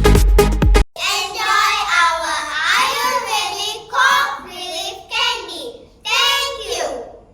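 Electronic dance music stops abruptly about a second in, followed by a child's high voice singing several short phrases with brief pauses between them.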